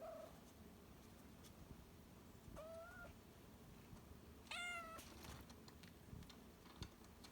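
Kitten meowing three times: a brief meow at the start, a second about two and a half seconds in, and a third about two seconds later that is the loudest.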